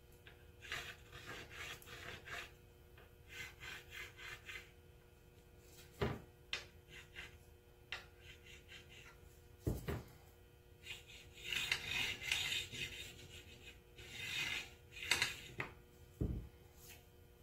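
Faint, irregular scratchy strokes of a marker being drawn along the edge of a paper template on a flat sheet, with the template rustling and sliding on it. Three dull knocks come about six, ten and sixteen seconds in.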